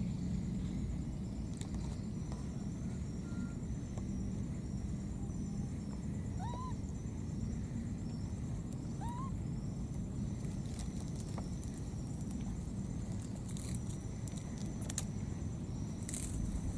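Outdoor ambience in scrub: a steady low rumble, a high pulsing chirr, and two short rising-then-falling calls about two and a half seconds apart, with a few clicks near the end.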